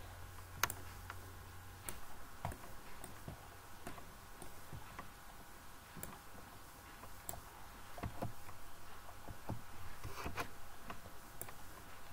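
Irregular single clicks of a computer mouse and keyboard keys over a faint steady hum.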